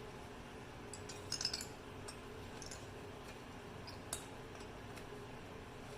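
Light metallic clinks and ticks of a brake pad and its hardware being handled in the caliper bracket: a small cluster about one and a half seconds in, a couple more a little later, and a single sharper click about four seconds in, over a steady low hum.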